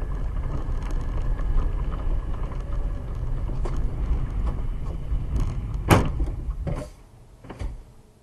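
Low road and engine rumble inside a car driving on a slushy street, with a sharp bang about six seconds in and two lighter knocks after it. The rumble then dies away.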